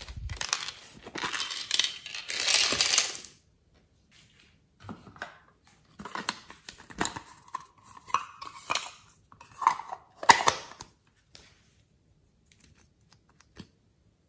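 Hard plastic toy containers being handled and opened: a dense rattle and clatter for the first three seconds, then scattered clicks and short rattles with a brief squeak as a bear-shaped plastic container is opened. Only a few faint ticks follow near the end.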